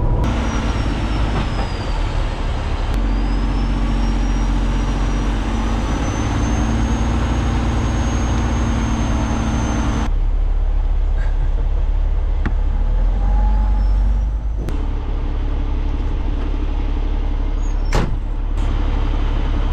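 Peterbilt semi truck's diesel engine running as the rig drives, with a thin high whine that slowly rises over the first ten seconds. The sound changes abruptly several times, and a sharp click comes near the end.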